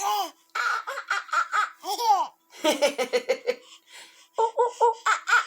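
Baby laughing in several runs of quick, high-pitched giggles, with single rising-and-falling voice sounds between the runs.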